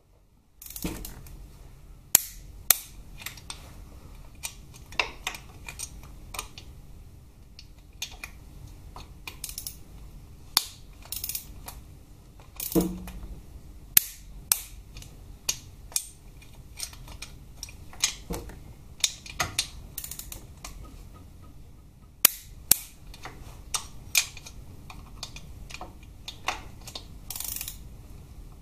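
Irregular sharp metallic clicks of a torque wrench's ratchet worked in short strokes, tightening a Harley-Davidson Twin Cam 88's front engine mounting bolt to 38 ft-lb while a ring spanner holds the other end. A duller knock comes about 13 seconds in.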